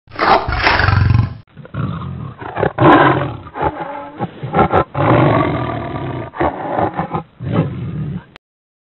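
Tiger roaring and growling: one long, loud roar, then a run of shorter roars and growls that stop shortly before the end.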